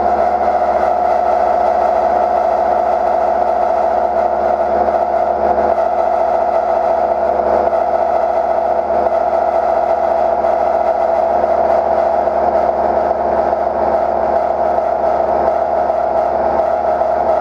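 CNC milling machine cutting a shoulder in a metal block with a Tungaloy DoForceTri indexable end mill fitted with TNGU-MJ inserts on a long-overhang holder. It makes a steady, pitched whir that holds unchanged throughout, under a light cut with spindle load at most 12%.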